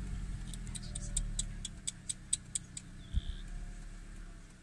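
Steady low rumble of an idling vehicle engine under a fast, even run of sharp high clicks, several a second, that stop about three seconds in. A short high chirp and a soft knock come just after.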